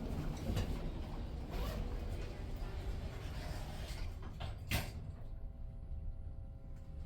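Elevator doors sliding and creaking, then shutting with a sharp clunk about five seconds in. After the clunk the surrounding bustle goes muffled and a faint steady tone remains.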